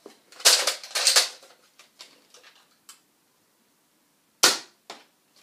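Nerf Elite Retaliator dart blaster being primed and fired, giving sharp plastic clacks and spring-plunger shots: a cluster of clacks about half a second to a second in, a faint click near three seconds, and one loud sharp shot about four and a half seconds in.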